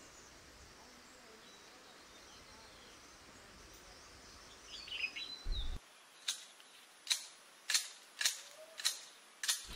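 Faint, even room hiss, then in the second half a string of about six sharp, short clicks, roughly one every two-thirds of a second.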